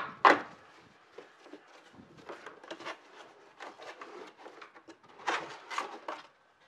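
A long cardboard shipping box being torn open by hand: two sharp rips right at the start, then rustling and scraping of the cardboard flaps, with a few louder tears a little after five seconds in.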